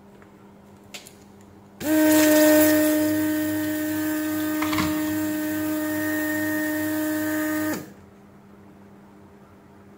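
The Weller WR3M station's built-in vacuum pump running with a hiss of air as the DSX-80 desoldering iron sucks solder from a circuit-board joint. It starts suddenly about two seconds in, holds a steady hum for about six seconds and cuts off abruptly. The suction is working again now that the clogged filters have been replaced.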